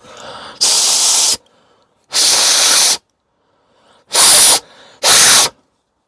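Four short hissing blasts of air blown through a gas water heater's pilot orifice to clear out debris, the first two longer, the last two quicker and close together.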